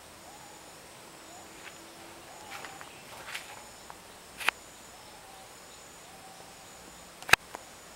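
Rainforest ambience: a faint steady insect drone with a few short, faint calls, broken by scattered sharp clicks or knocks, the loudest about seven seconds in.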